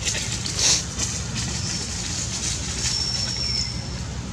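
Black plastic bag rustling and crackling as a monkey clutches it, loudest about two-thirds of a second in, over a steady low rumble. A brief thin high tone sounds about three seconds in.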